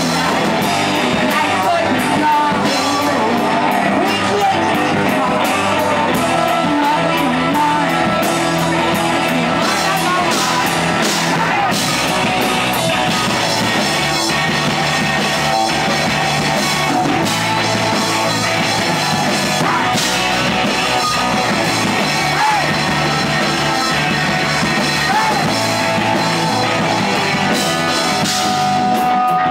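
Live rock band playing a song: electric guitars, bass guitar and drum kit, with lead vocals sung over them.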